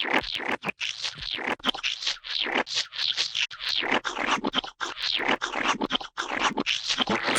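A rapid string of gooey splat sound effects, several short wet slaps and squelches a second, each cut off sharply before the next.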